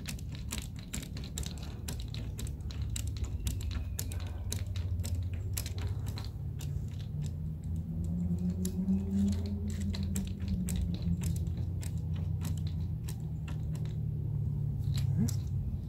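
Many small, irregular clicks and taps of hand tools and plastic parts being handled while a sunroof assembly is screwed back together, over a steady low hum.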